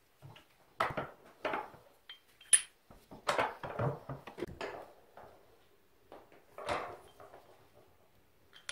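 Metal parts of a Showa motorcycle rear shock absorber being handled and fitted together: a series of separate clinks and knocks, the sharpest about two and a half seconds in.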